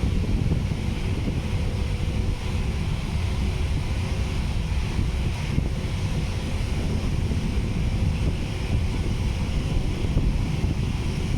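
Strong wind buffeting the microphone with a heavy, uneven rumble, over a steady hiss and faint steady hums in the background.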